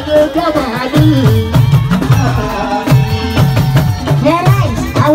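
Live Yoruba party music: drums playing a steady repeating pattern under a voice singing into a microphone.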